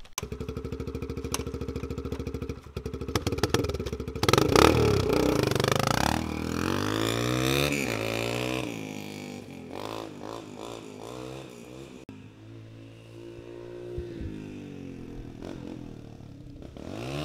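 Small dirt bike engine running steadily, then revved hard about four seconds in, its pitch rising and falling repeatedly as the bike is ridden around.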